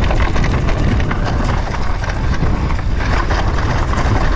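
Mountain bike rumbling and rattling down a rough trail over roots and stones, a dense run of quick knocks and clatter over a heavy low rumble.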